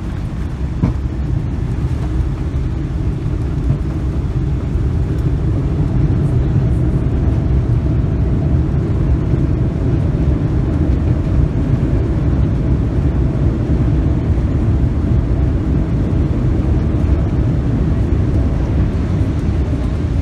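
Steady low rumble inside the cabin of a Boeing 777-300ER on the ground after landing, getting a little louder about six seconds in.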